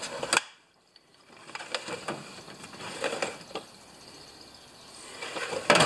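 Drawers of a steel tool chest sliding open and shut, with the tools inside rattling and clinking. There is a sharp clatter just after the start and a louder one near the end.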